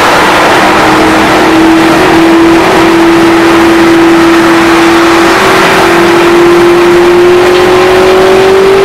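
Car interior at highway speed: steady road and wind noise with a strong engine drone that rises slightly in pitch as the car gains speed.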